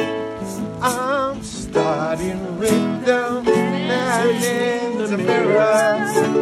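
Ukulele strummed in a steady rhythm while voices sing a wavering melody along with it.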